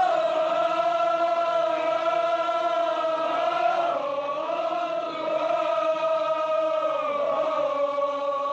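Men's voices chanting a Kashmiri marsiya, a Shia mourning elegy, in long held notes that slide slowly up and down in pitch.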